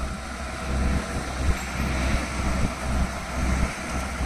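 Mahindra Arjun 555 tractor's diesel engine pulling a loaded trailer up a slope: a steady low rumble.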